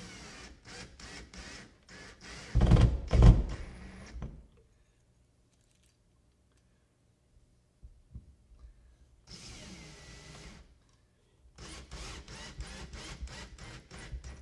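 Electric screwdriver driving drywall screws through a lath strip into the wall, in short runs with rapid clicking between them and a loud knock about three seconds in.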